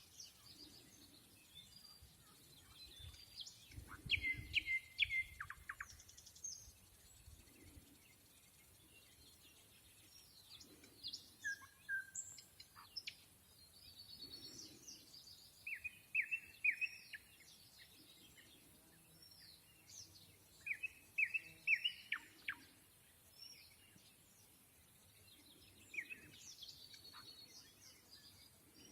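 Nightingale singing an unhurried song: short phrases of rapidly repeated notes and whistles, separated by pauses of several seconds. Other small birds chirp in the background, and a brief low rumble comes about four seconds in.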